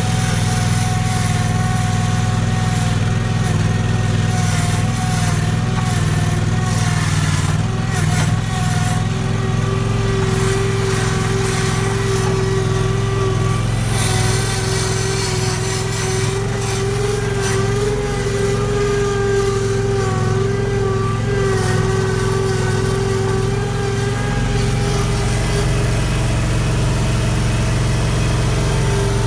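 26 hp Kawasaki liquid-cooled, fuel-injected V-twin engine of a skid steer running steadily while the machine is driven. A higher whine sits over the engine through the middle part.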